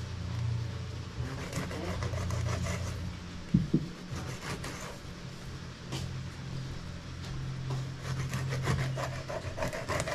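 Fresh coconut being grated by hand: runs of quick, repeated rasping strokes, with pauses between them, over a steady low hum.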